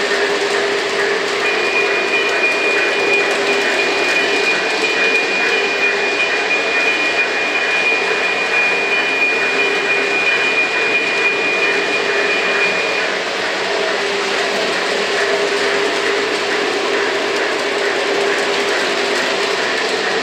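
Lionel O gauge model trains running on three-rail metal track: a steady mechanical whirring of motors, gears and wheels on the rails, with a steady hum under it. A thin high steady tone starts about a second in and stops about two-thirds of the way through.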